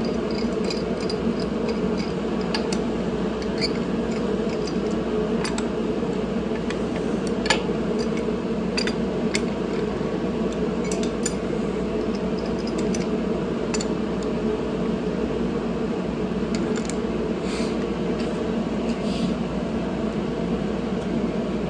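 Scattered light metallic clinks and taps of tools and engine parts being handled while a part is worked loose during an engine teardown, over a steady background hum.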